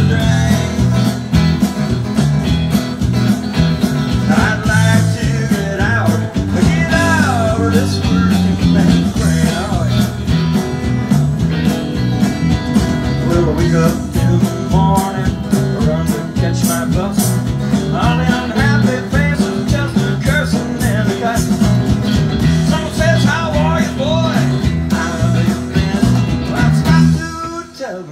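Live band playing a blues-rock song, with acoustic and electric guitars over a steady bass-heavy rhythm and a wavering lead line on top, in an instrumental stretch without singing. The music drops away briefly near the end.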